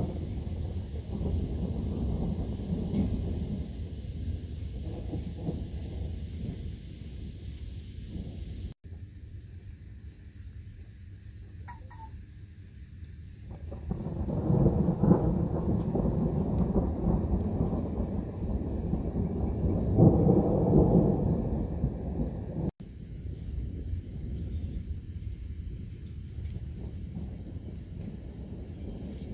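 Thunder rumbling in long low rolls, loudest about halfway through and again about two-thirds of the way in, over a steady high chirring of insects. The sound breaks off abruptly twice at splices.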